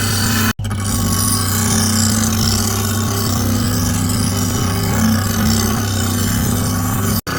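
A power tool running steadily with a constant motor hum and a high-pitched grinding hiss, cut off abruptly twice for an instant.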